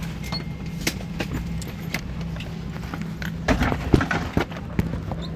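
Steady low hum of an airliner cabin, with irregular light clicks and knocks. A cluster of louder knocks comes about three and a half to four and a half seconds in.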